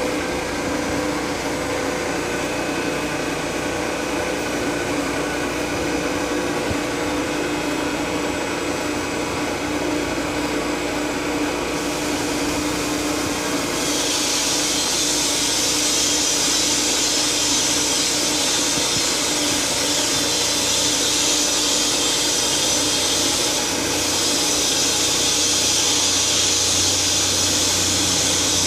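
Steady machine hum with a continuous hiss; the hiss grows louder about halfway through and holds.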